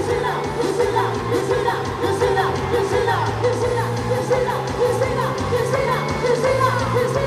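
Festa junina quadrilha dance music with a steady, repeating bass line and singing.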